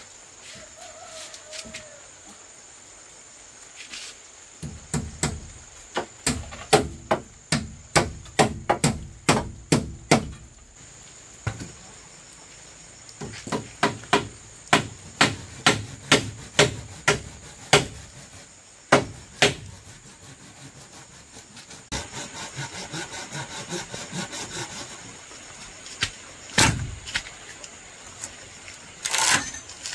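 Hammer blows in quick runs of about two or three strikes a second, with short pauses between the runs, as in nailing up a wooden or bamboo frame. A steady high whine runs underneath.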